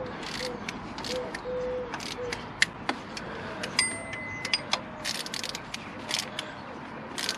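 Hand ratchet wrench clicking in short irregular strokes as the water pump bolts on a BMW N47 diesel engine are tightened to torque. A short, high steady beep sounds about four seconds in.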